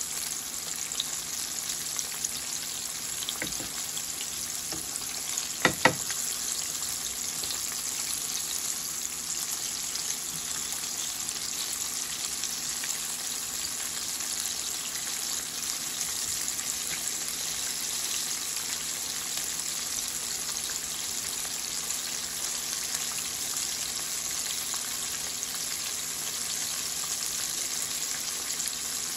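Breaded chicken nuggets shallow-frying in hot oil, a steady high sizzle. A few seconds in come two sharp clicks, the second louder, from tongs knocking against the pan.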